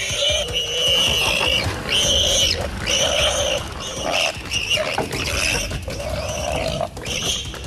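A wild animal giving a rapid series of loud squealing cries, each under a second long, roughly one a second, over a low rumble.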